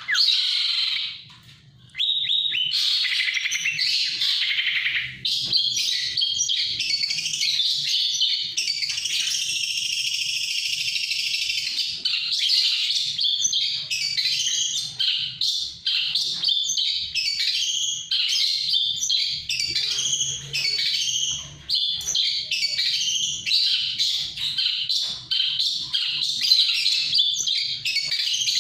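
Songbird singing a rapid, continuous song of varied chirps and trills, with a brief pause about a second in.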